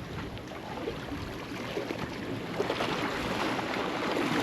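Steady rush of wind and waves at a rock jetty, growing louder near the end.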